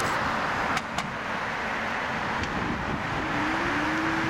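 Jet engines of a Boeing 787-8 Dreamliner at takeoff thrust, a steady rushing noise as the airliner climbs away. A couple of faint clicks come about a second in, and a low hum that rises slightly and then holds comes in about three seconds in.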